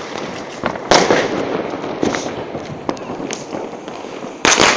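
New Year's Eve firecrackers and fireworks going off. There is one loud bang about a second in, scattered smaller pops, and a quick cluster of bangs near the end.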